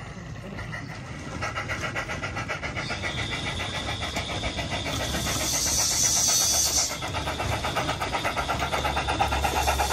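Sound-fitted battery-electric model of the Ffestiniog 0-4-0 'Prince', its onboard sound unit playing steam-locomotive chuffs in a quick, steady beat that grows louder as the engine approaches. A hiss of steam joins the chuffs about five seconds in and lasts about two seconds.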